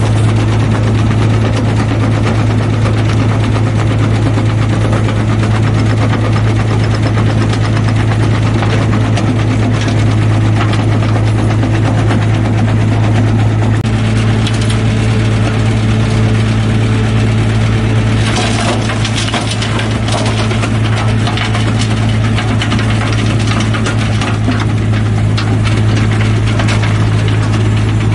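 Mobile rock crusher running with a steady low drone while its feed conveyor carries soil and rocks into the crusher, stones knocking and cracking as they are broken. About halfway through, a fresh load is tipped into the hopper, and a few seconds later there is a burst of rattling and cracking.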